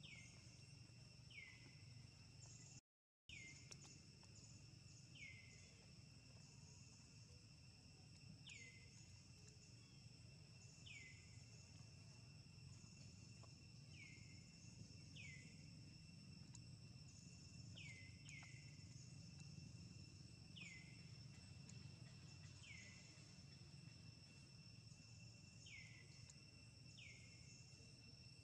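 Faint forest ambience: insects trilling steadily at a few fixed high pitches, with a short, quickly falling chirp repeated every one to two seconds and a low steady rumble underneath. The sound cuts out for a moment about three seconds in.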